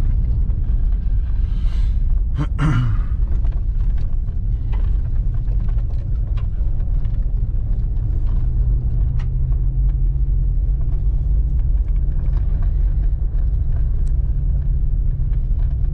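Steady low rumble of a car's engine and tyres on a dirt trail, heard from inside the cabin, with scattered small clicks and rattles.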